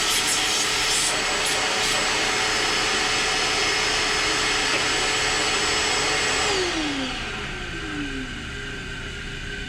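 A workshop machine's electric motor runs at a steady speed with a loud hiss and whine, then is switched off about six and a half seconds in and winds down, its pitch falling.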